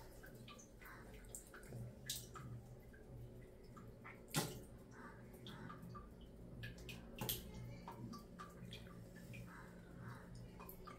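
Faint wet clicks and squelches of a finger rubbing a gritty rice-flour, salt and lemon paste over the teeth, with one sharper click a little after four seconds.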